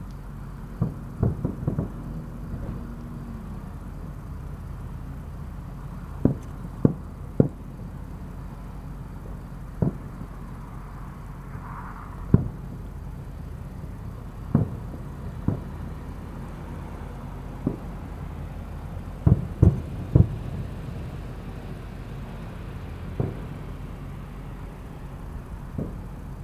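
Aerial firework shells bursting: irregular dull booms, some coming in quick clusters of two or three, over a steady low rumble.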